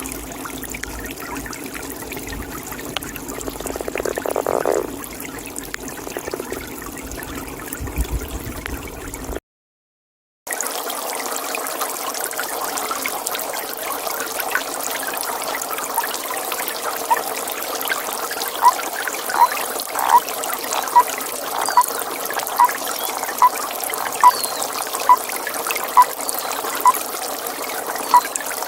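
Steady trickling pond water, cut by about a second of dead silence a third of the way in; in the second half a toad calls over and over, short calls repeated about once every three-quarters of a second.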